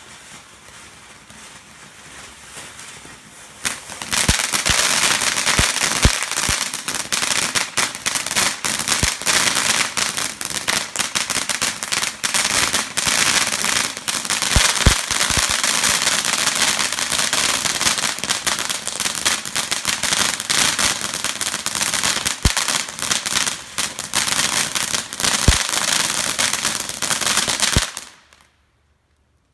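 Bombshell Fountain, a consumer firework ground fountain, spraying sparks with a soft hiss. About four seconds in it breaks into loud, dense crackling that runs for over twenty seconds, then cuts off suddenly as the fountain burns out.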